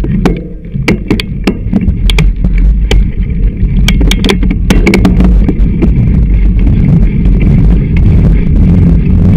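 Handlebar-mounted camera on a moving bicycle picking up a loud, steady low rumble with sharp knocks and rattles from the bumps, the knocks thickest in the first half. The mount has no cushioning, so every jolt of the bike comes through as a knock.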